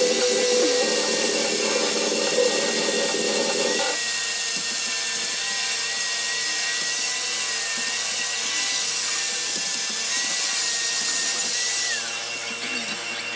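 Handheld angle grinder running steadily with a high motor whine, its disc grinding a head-knife blank clamped in a bench vise. The grinding is heaviest for the first few seconds. About twelve seconds in, the grinder is switched off and the whine falls away as it winds down.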